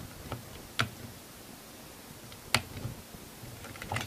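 A few sharp plastic clicks, the two loudest about a second and a half apart, with fainter ticks and light handling: buttons being pressed on a toy's secret-code lock.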